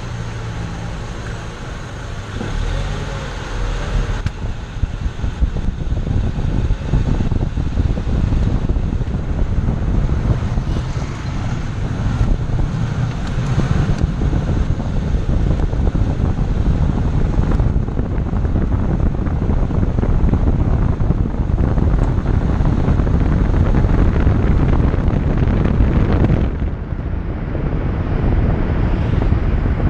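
Chevrolet Zafira on the move: steady road rumble with wind buffeting the microphone, easing briefly near the end.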